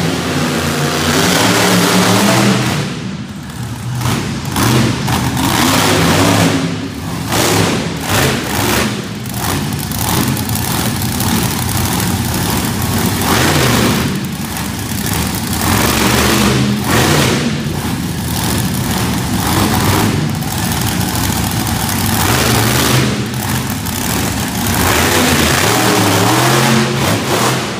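Monster truck engine revving hard and unevenly, the throttle lifting briefly every two to three seconds and then opening up again.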